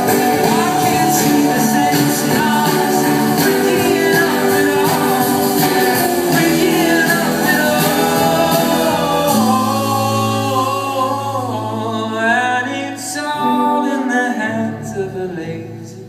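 A live band playing a song, with guitar and male singing. About nine seconds in the full sound thins out to a few held notes and sliding pitches, and it fades toward the end.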